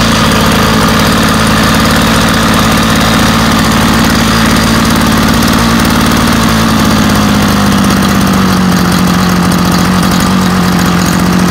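Homelite Bandit SX-135 25cc two-stroke string trimmer engine idling steadily, its speed easing slightly lower in the second half as the idle is turned down. With no clutch, the trimmer head keeps spinning at idle.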